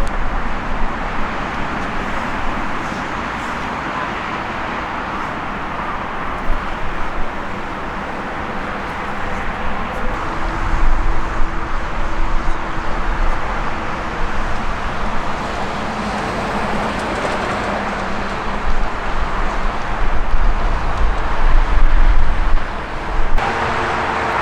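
Boeing 787-10 Dreamliner jet airliner's engines running, a steady rushing noise with a deep rumble under it that swells louder twice. The sound changes abruptly near the end.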